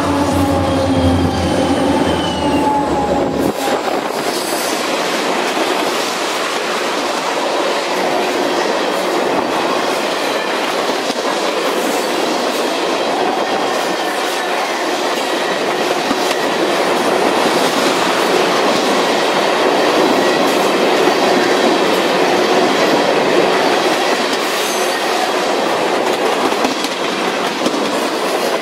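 Freight train passing close by: the trailing EMD diesel locomotives go past in the first few seconds with a low engine rumble and a falling pitch. Then loaded tank cars roll by with steady, loud wheel-on-rail noise and a few faint high squeals.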